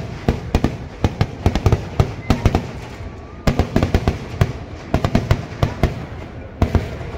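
Kerala temple-festival fireworks (vedikettu) going off as a dense, irregular string of firecracker bangs, several a second, with a brief lull a little after three seconds in.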